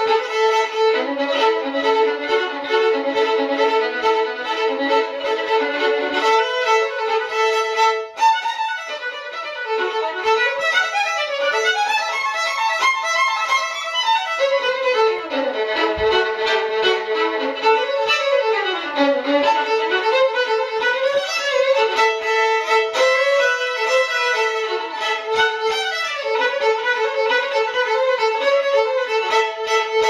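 Violin music: a fiddle tune of held notes and pitch slides, with more sliding around the middle.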